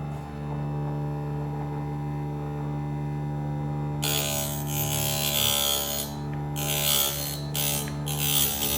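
Electric drill bit sharpener humming steadily. From about four seconds in, rough grinding rasps come in several bursts as the second side of the drill bit is ground.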